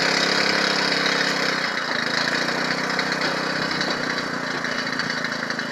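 Engine of a machine on a test run, running steadily; its note shifts slightly about two seconds in.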